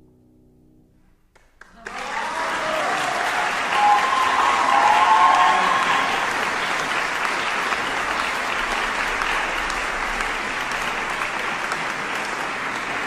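The last chord of a grand piano fades out, and about two seconds in the audience bursts into applause, which stays loud and steady to the end.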